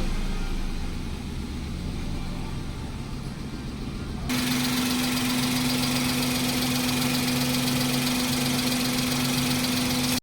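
Suzuki Alto engine idling steadily while an engine-flush additive circulates in the old oil. About four seconds in the sound cuts suddenly to a louder, steady hum.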